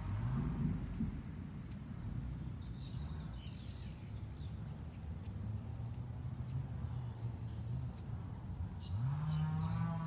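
Yellow-vented bulbul nestlings giving many short, high, thin begging chirps while a parent feeds them at the nest. Under them runs a low, wavering humming tone that swells again near the end.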